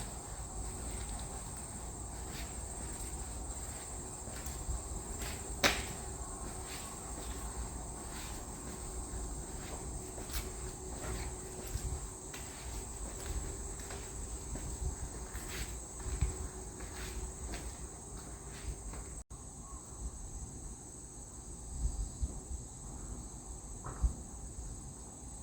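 Insects chirring steadily in a high band, with scattered sharp clicks, the loudest about six seconds in, over a low rumble. A faint steady hum runs through much of the middle.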